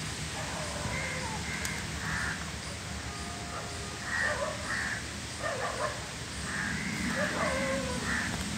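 Crows cawing in several separate bunches of harsh calls, over steady background noise.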